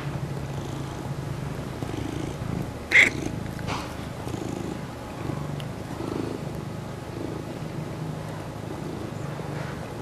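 Mackerel tabby cat purring steadily as he kneads a knit pillow. There is a brief sharp noise about three seconds in, the loudest moment, with a fainter one just after.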